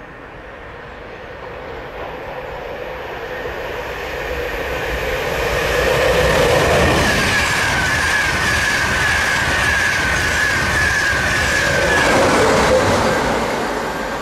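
British Rail Class 91 electric locomotive and its InterCity 225 train passing by: the noise builds over about six seconds, stays loud for several seconds with a high steady whine over it, then begins to fade near the end.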